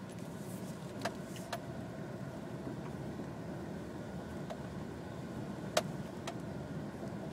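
Subaru Baja cabin with steady road and engine rumble, over which a faint, steady reedy tone sounds from behind the dashboard, like a harmonica. A few sharp clicks come through, the loudest about three-quarters of the way in.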